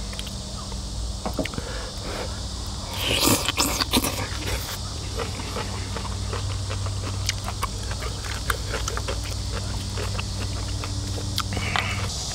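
Close-miked eating sounds of a mukbang: chewing, with chopsticks clicking against the food and bowl, and a louder burst of eating noise about three seconds in. Behind it are a steady high insect buzz and a steady low hum, which stops just before the end.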